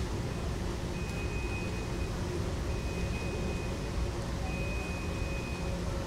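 Airport terminal ambience: a steady low hum and rumble of the hall, with a high electronic beep about a second long that repeats three times at even spacing.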